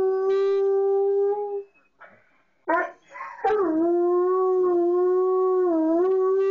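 Black and tan coonhound howling: a long, steady howl breaks off about one and a half seconds in. Two short yelping calls follow, then a second long howl with small dips in pitch.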